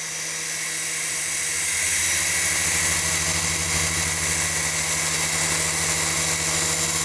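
Protocol remote-control helicopter in flight: a steady motor whine and rotor buzz with a low hum. It grows louder about two seconds in, then holds steady.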